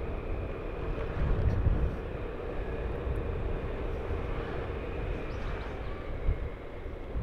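A vehicle travelling along a road: a steady engine hum over a low rumbling noise, briefly louder about a second and a half in.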